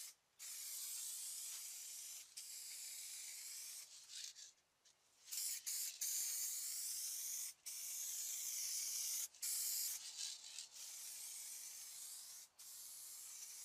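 Aerosol spray paint can spraying in repeated passes: a steady high hiss that stops briefly between strokes, with a longer break about four to five seconds in.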